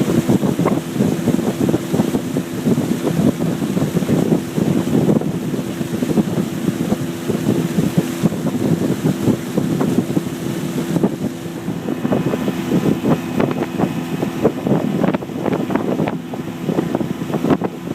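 A boat's motor running steadily with a constant hum, while wind buffets the microphone heavily.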